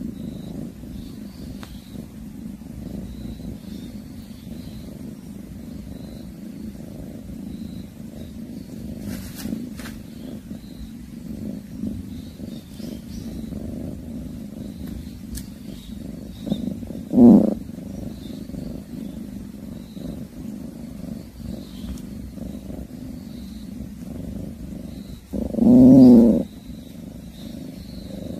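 Domestic cat purring in a steady low rumble while it eats prey it has caught. Twice it gives a short, louder low call, about seventeen seconds in and, longer, near the end.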